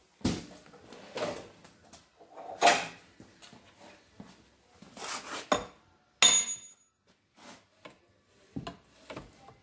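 Metal clanks and scrapes from a Ford 8N hydraulic lift cover's control lever being swung along its quadrant against a newly tightened friction disc, which holds it stiffly. A ringing metallic clink about six seconds in.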